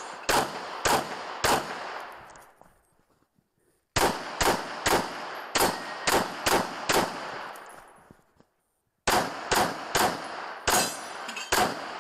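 Pistol fired in rapid strings of shots, about two a second, each shot with a short echo tail, during a practical shooting course of fire. The shooting breaks off twice for about a second of silence before resuming.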